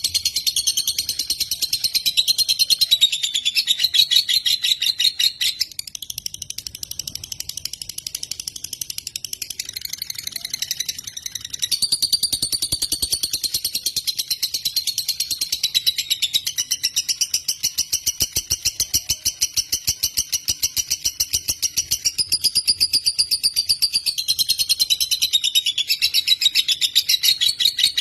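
Lovebird (Agapornis) singing a long, unbroken chattering song of rapid high chirps, many a second, its pitch and pattern shifting every few seconds.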